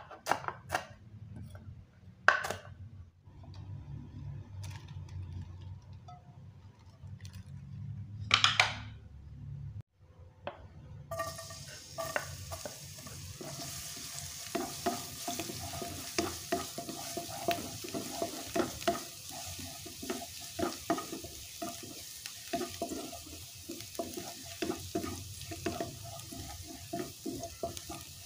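A few knife strikes chopping red chilies on a wooden cutting board. Then, from about eleven seconds in, minced garlic sizzles in hot oil in a frying pan while a spatula stirs and scrapes it in quick, repeated strokes.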